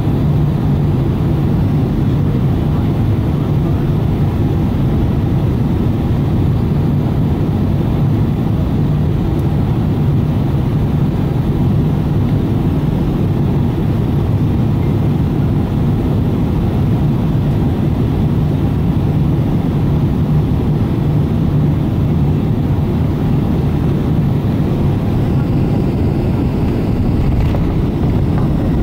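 Steady cabin noise of a jet airliner on final approach: engine drone and rushing air with a constant low hum.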